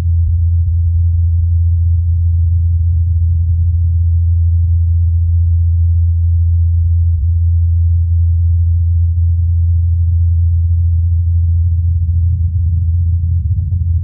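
Steady low hum of the Ingenuity Mars helicopter's spinning rotor blades at about 84 Hz, recorded by the SuperCam microphone on the Perseverance rover, filtered to isolate the blade tone and amplified.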